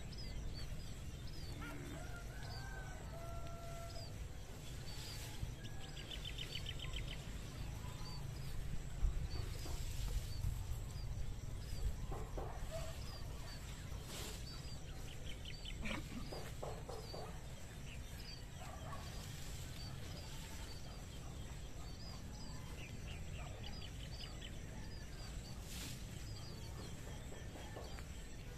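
Farmyard sounds: chickens clucking on and off and small birds chirping over and over, over a steady low rumble.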